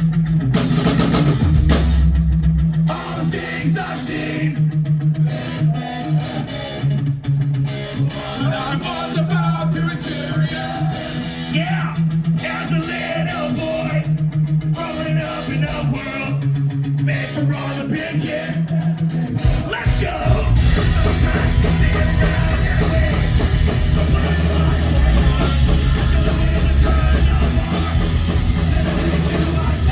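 Rock band playing a song live: guitar and singing, then the full band with drums comes in about two-thirds of the way through.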